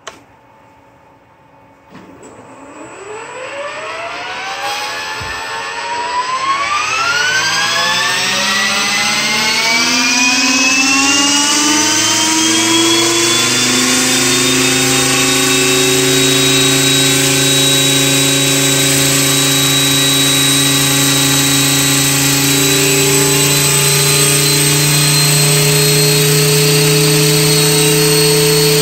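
Blade 450X electric RC helicopter spooling up from a standstill, with a short click at the start. The brushless motor and rotor whine rises steadily in pitch for about ten seconds, then holds steady at head speed as the gyro keeps the tail against the main rotor's torque.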